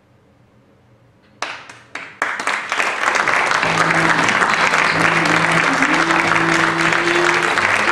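Theatre audience applause: a few scattered claps about a second and a half in, swelling within a second or so into full, steady applause. Music with a slow melody starts under the applause about halfway through.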